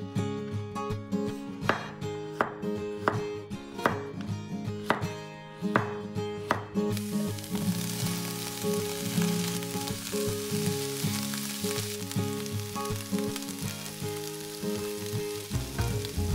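Knife strokes on a wooden cutting board about once a second. About seven seconds in, food starts sizzling in hot olive oil in a pan and keeps up a steady sizzle.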